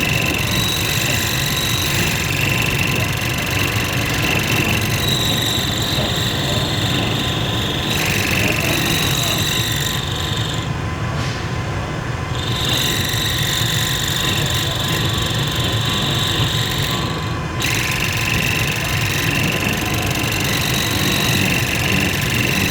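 Lathe running with a steady mechanical hum and rumble, and high-pitched tones that fade out and return a few times.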